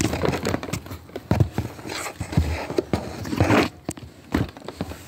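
Handling noise from objects being moved about: irregular taps, knocks and light scrapes, with a short scratchy rustle about three and a half seconds in.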